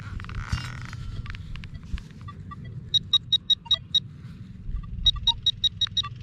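Handheld metal-detecting pinpointer giving quick runs of short high-pitched beeps, about eight a second, twice, with a few scattered lower detector tones between. The beeping is typical of the pinpointer falsing with no target nearby, set off near the Nokta Makro Legend detector. A brief rustle comes at the start.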